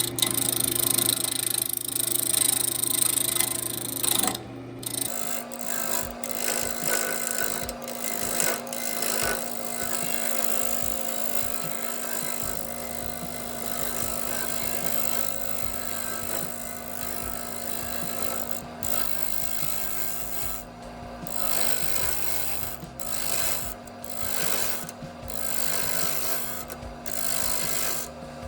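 Wood lathe running while a turning tool cuts into the spinning wood block, with a scraping, rasping cut that breaks off briefly now and then. Background music with steady bass notes changing every few seconds plays alongside.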